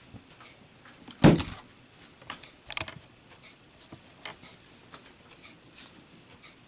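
Brass Zippo lighter dropped onto a hard surface, landing with one sharp clack about a second in, followed by a few smaller clicks and knocks as it is handled.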